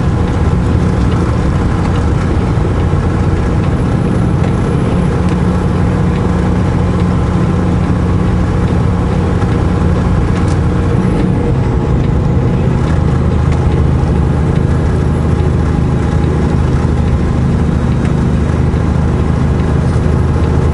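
Semi truck's diesel engine droning steadily inside the cab on a slow snowy descent, running on the engine brake. Its note shifts about eleven seconds in.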